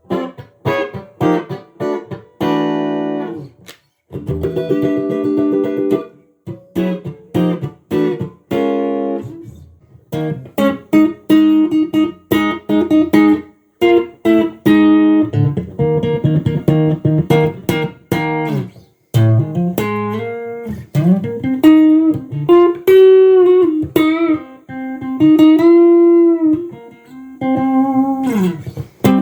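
Tomson Stratocaster-style electric guitar played solo: picked single notes and chords in short phrases, with string bends that push the pitch up and back, and a downward slide near the end.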